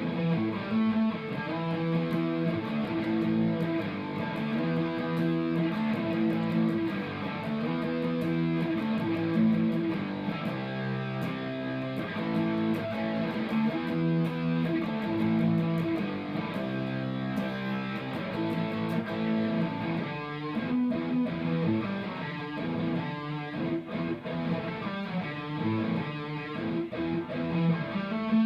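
Ibanez RG electric guitar played through a Marshall MG101CFX amplifier: chords strummed and held, changing every second or so.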